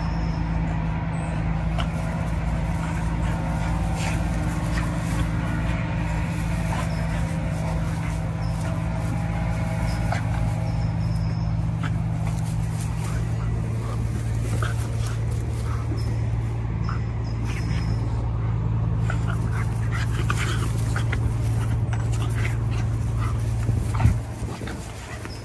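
A golden retriever puppy and a small black puppy play-wrestling quietly, with soft whimpers and scattered rustles, over a steady low mechanical hum.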